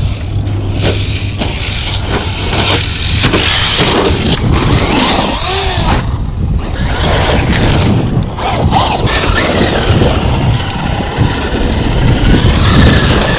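Radio-controlled cars running on dirt and pavement: motors whining up and down in pitch as they speed up and slow down, over tyre and wind noise.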